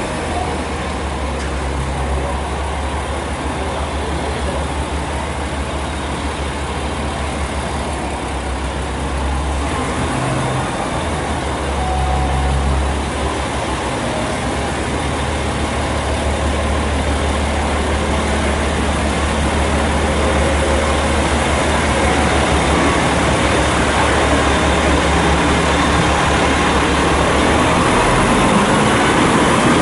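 Diesel engine of a KiHa 47 tourist railcar running with a steady low hum, growing slowly louder as the train rolls past, with the engine note rising near the end as it picks up throttle.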